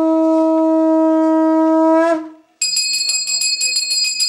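Conch shell (shankha) blown in one long, steady note that bends slightly upward as it ends about two seconds in. After a brief gap, a puja hand bell is rung rapidly, about eight strokes a second.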